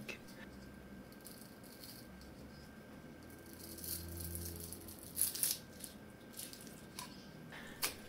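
Faint handling noise as a DDR3 memory module's circuit board is slowly pulled off its strongly glued heatspreader, the adhesive giving way. There are a couple of short crackling rustles about five seconds in and again near the end.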